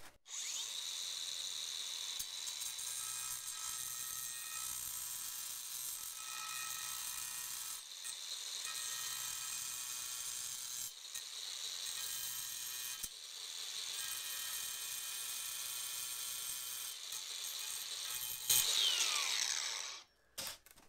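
DeWalt cordless angle grinder running with a steady high whine as it shaves out an inside corner of an engineered quartz windowsill. Near the end it gets louder, its pitch falls, and it stops.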